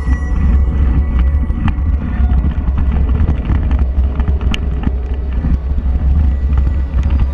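Mountain bike riding over a leaf-covered dirt trail, heard from a bike-mounted camera: a steady low wind rumble on the microphone with scattered clicks and rattles from the bike.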